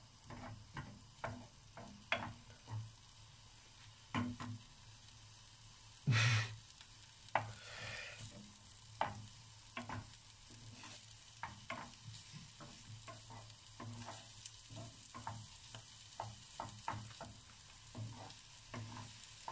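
Wooden spoon stirring diced onion in a non-stick frying pan, with repeated short knocks and scrapes of the spoon against the pan, the loudest a little after six seconds in, over a light sizzle of the onion frying in oil.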